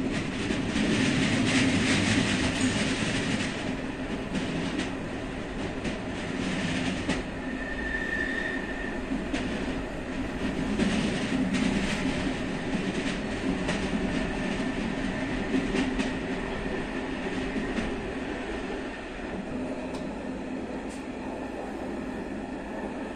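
Passenger train running on a branch line, heard from inside its last coach, a BDs450: a steady wheel-and-rail rumble with irregular clicks of the wheels over rail joints. A short high wheel squeal about eight seconds in.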